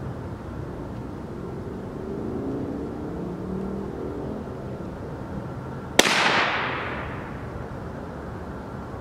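A single rifle shot about six seconds in: one sharp crack followed by a short echo rolling off through the woods.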